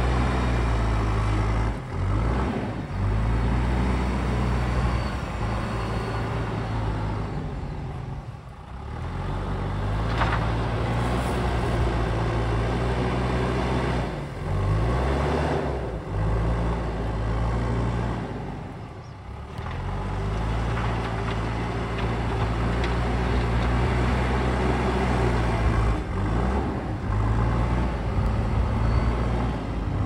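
JCB backhoe loader's diesel engine working hard as the front loader bucket pushes soil. The revs drop and climb again several times, with brief dips in level around a quarter and two-thirds of the way through.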